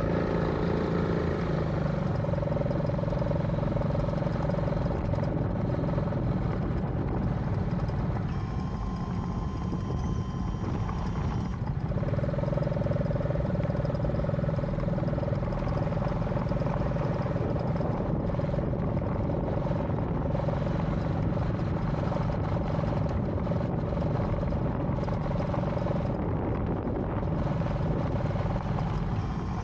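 A steady mechanical hum at a constant pitch, like an engine or motor running without change; the pitched part drops away about eight seconds in and returns about four seconds later.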